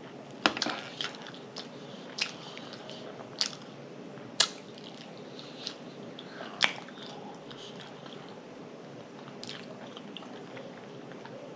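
Close-miked eating: chewing with sharp wet mouth clicks and lip smacks every second or two.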